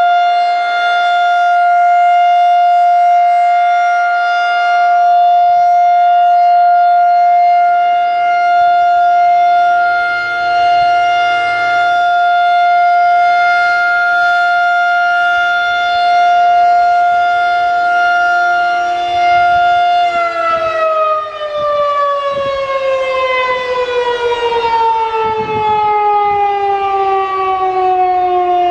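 Federal Signal 2001-130 electromechanical outdoor warning siren sounding the steady tone of a full alert. About 20 seconds in, the power is cut and the pitch slides steadily down as the rotor winds down, marking the end of the alert cycle.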